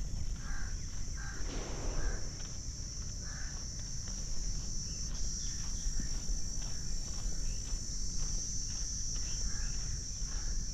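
Steady high-pitched drone of insects such as crickets, over the walker's regular footsteps on the jogging track. A few short bird chirps come in about half a second in, around three and a half seconds in, and again near the end.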